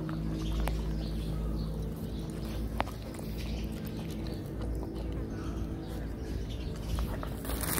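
A puppy eating chicken meat and bones from a plastic bowl: chewing with scattered sharp clicks and crunches, the loudest about three seconds in, over a steady low hum.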